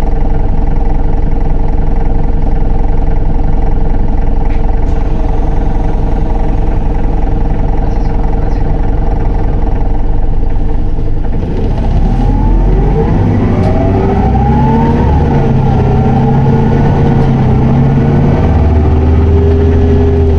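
Isuzu Erga city bus's four-cylinder turbo-diesel engine and driveline running on the move. The engine note holds steady for about ten seconds, then rises and falls as the bus accelerates with the gearbox held in 4th, with whining tones that glide up and down over a low drone.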